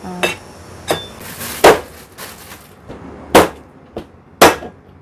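Meat cleaver chopping a roast chicken into pieces on a cutting board: about six sharp knocks at uneven spacing, three of them loud.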